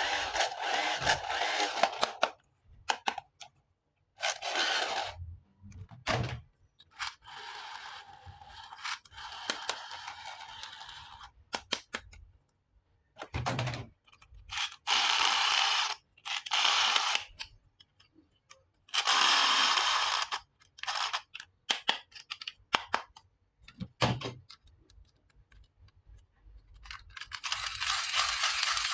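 Plastic toy packaging and parts being handled: a series of short scraping, rustling bursts with sharp clicks between them, and a longer, softer rustle a few seconds in.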